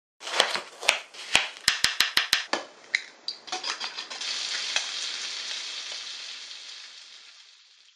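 Eggs being beaten in a glass bowl, the utensil clicking against the glass with a quick run of taps. From about three and a half seconds in, bacon strips sizzle in a frying pan, the sizzle fading out near the end.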